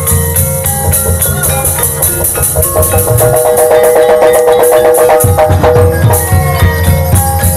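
Gamelan accompaniment for an ebeg dance: struck gong-chimes ringing steady notes over drumming, with a quick flurry of rapidly repeated notes in the middle.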